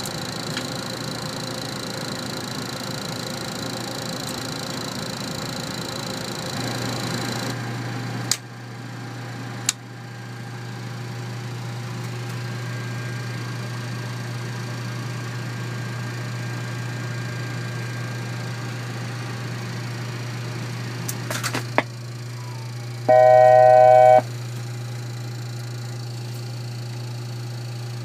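Steady fan hum of a Boeing 737 flight deck, with a high whine that stops a few seconds in. Sharp clicks of cockpit switches come twice around eight to ten seconds in and again a little after twenty seconds, and near the end a loud steady electronic alert tone sounds for about a second.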